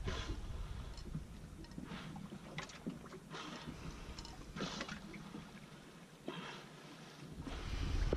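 Water lapping against the hull of a drifting boat in short, irregular splashes. Wind rumbles on the microphone at the start, dies away, and returns near the end.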